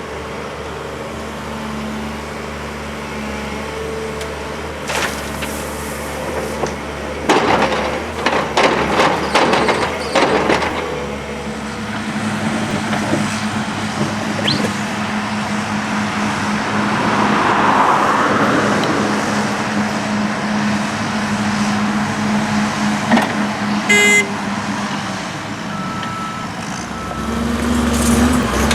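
Heavy construction machinery engine running steadily, with a run of metallic clanks and knocks in the first half and a brief high pitched tone, like a horn toot, near the end.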